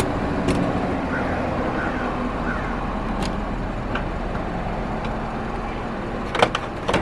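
Steady car noise, an even rumble and hiss, with a few faint clicks.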